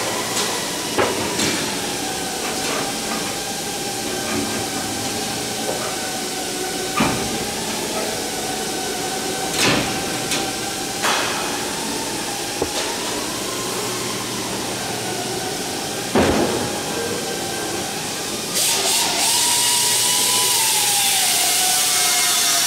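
About five sharp knocks, a few seconds apart, from hand work on the aluminium formers and stringers of an aircraft rear fuselage, over a steady hiss and a faint wavering hum. The hiss gets suddenly louder near the end.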